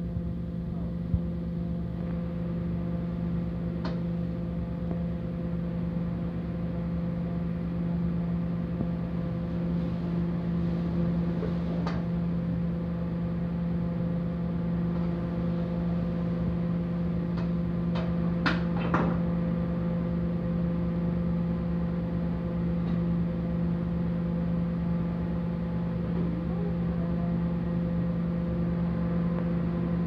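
Steady droning hum of a commercial kitchen range, with its fan running and a high gas flame burning under a pan. A few sharp metal clinks of cookware come through, two close together a little past halfway.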